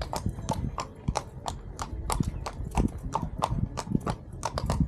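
A horse walking, its hooves clip-clopping in a steady rhythm of about four strikes a second.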